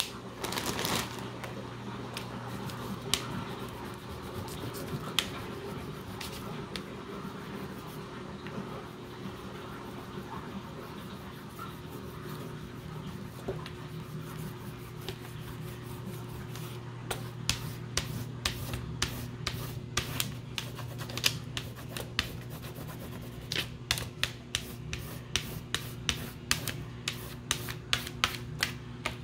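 Crayon scratching back and forth on paper on a clipboard as a patch is coloured in. From about halfway through, the strokes turn into quick, clicking scratches, a few a second.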